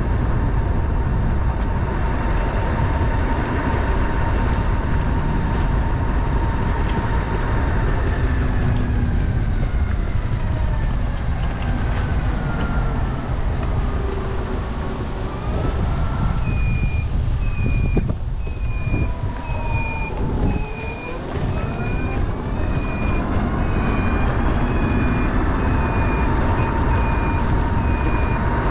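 Trike engine running with wind noise while riding: the engine note falls as it slows about two-thirds of the way in, then rises as it speeds up again. From a little past the middle, a high electronic beep repeats about once a second.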